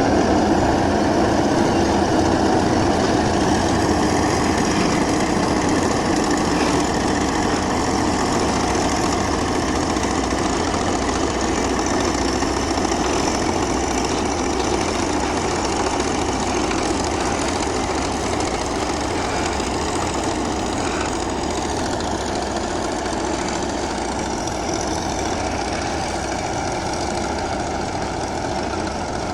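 Komatsu D155A bulldozer's diesel engine running steadily, growing slowly quieter.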